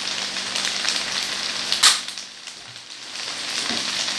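Pesto pasta sizzling and crackling in a frying pan, with one sharp click a little under two seconds in, after which the sizzle is quieter for about a second before picking up again.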